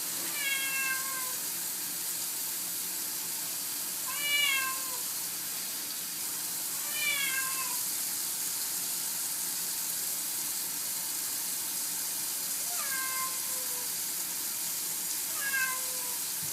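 A domestic cat meowing five times, each a short drawn-out call that drops in pitch at the end: the complaining meows of a cat being given a bath. A steady hiss runs underneath.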